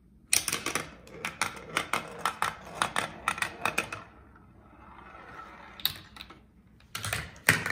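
Mouse Trap board game contraption running: a fast run of plastic clicks and clatters as the parts move and a small metal ball drops, then the ball rolling along the plastic chute with a soft rattle for a couple of seconds, and a louder burst of clatter near the end.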